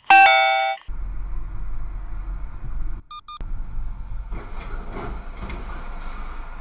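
A vehicle horn blasts loudly for under a second at the start. Steady in-car road noise follows, broken about three seconds in by two short beeps.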